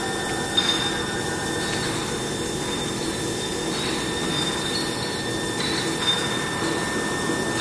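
VMC650 vertical machining center milling a workpiece: a steady high-pitched whine from the spindle and cutter, with short squeals of the cutter in the metal about half a second in, near four seconds and near six seconds.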